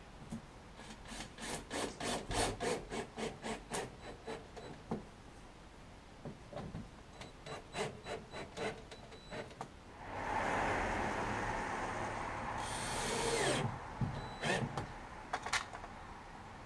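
Cordless drill driver working on screws in wood: a run of rapid, even clicks starting about a second in and another around the middle, then the motor runs for about three and a half seconds and spins down, followed by a few sharp clicks.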